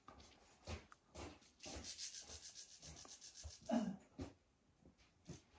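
Faint rubbing and scraping from someone moving over rock. About two seconds in there is a quick run of scratching, and near four seconds a single bump.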